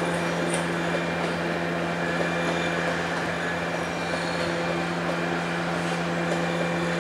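Steady low mechanical hum with a few fainter higher tones, holding an even level with no clatter or rhythm.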